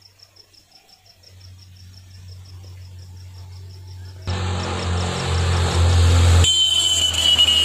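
Crickets chirping in a fast, even pulse over the low hum of a motorcycle engine that grows louder as it approaches; about four seconds in the engine sound jumps up sharply and dominates, and a steady high tone joins near the end.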